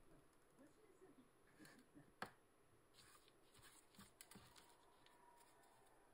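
Near silence, with faint rustling and light ticks from a glue brush and thin paper being handled. There is one sharper tap about two seconds in as the paintbrush is set down on the cutting mat.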